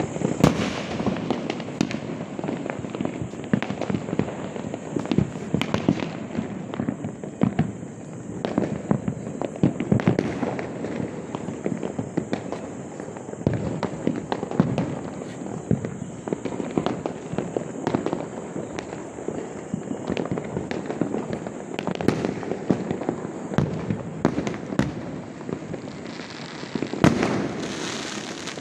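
Many fireworks and firecrackers bursting across the neighbourhood: a continuous crackle of overlapping bangs, some nearer reports standing out louder every few seconds.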